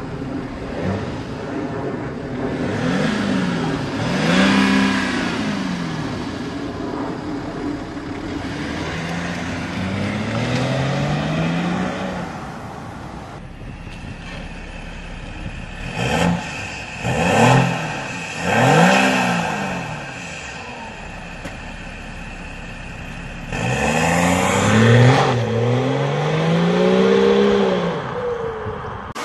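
Diesel BMW E60 5 Series engines free-revved while standing, heard at the exhaust. Several revs, each rising and falling in pitch, with three quick blips about two-thirds of the way through.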